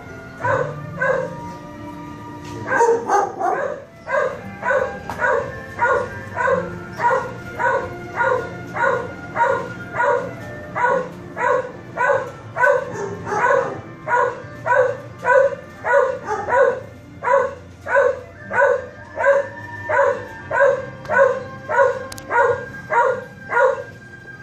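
A kennel dog barking over and over in a steady, even rhythm, about three short barks every two seconds.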